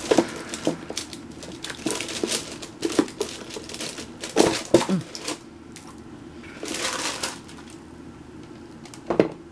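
Flexible silicone mould being flexed and peeled off a cured resin casting: a run of irregular crackles and clicks as it releases, with a short rustle about seven seconds in.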